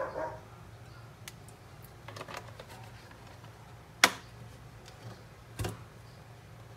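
Light scattered clicks and ticks from cooking oil being poured into a stainless steel pot heating on a gas stove, with one sharp click about four seconds in and another about a second and a half later.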